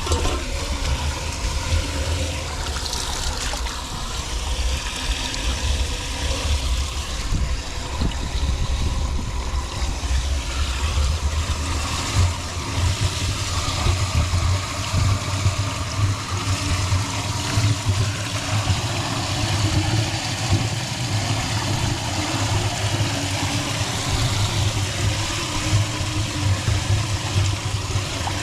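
Floodwater draining into a cleared street drain, with water noise throughout over a strong, uneven low rumble.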